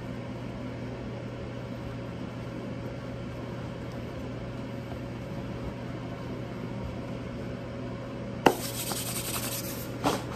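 Hands rubbing and stretching pizza dough on a floured counter over a steady low hum. About eight and a half seconds in there is a sharp click, then louder, uneven rubbing.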